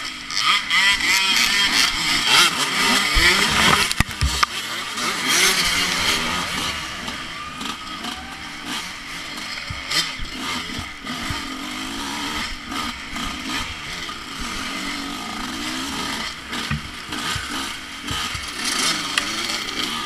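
Dirt bike engine revving up and down under racing load, picked up by an onboard camera with wind noise and knocks from the rough ground. The revs swing hardest in the first several seconds, then settle a little lower and steadier.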